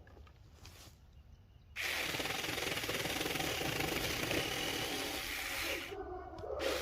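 Saker Mini battery-powered chainsaw with a 4-inch bar switching on about two seconds in and running loud, plausibly cutting wood, for about four seconds; near the end the high hiss drops away, leaving a lower sound.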